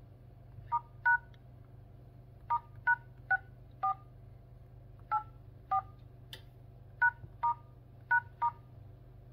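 Redmi 10C phone dialer keypad tones: twelve short two-tone beeps in uneven bursts as the service code *#*#6484#*#* is keyed in, the Xiaomi code that opens the built-in hardware test menu.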